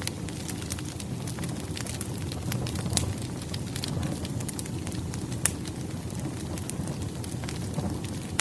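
Campfire crackling: a steady low rumble of burning with frequent sharp pops and snaps, a couple of louder pops about three and five seconds in.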